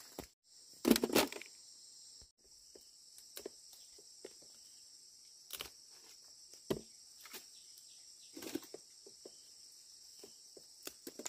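Steady, high-pitched chorus of insects such as crickets, with scattered rustles and light knocks. A louder rustling thump comes about a second in.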